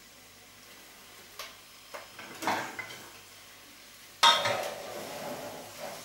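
Utensil clinking and scraping in a stainless steel pot as red cabbage is stirred in hot olive oil: a few light clinks, then a sudden loud clatter about four seconds in, followed by stirring and sizzling.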